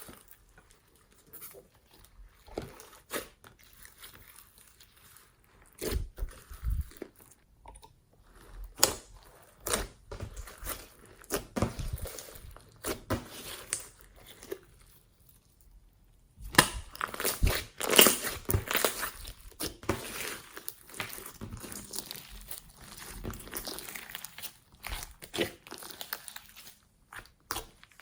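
Glossy slime being kneaded and squished by hand, with irregular sticky pops, clicks and crackles. The sound drops out briefly a little past the middle, then comes back busier and louder.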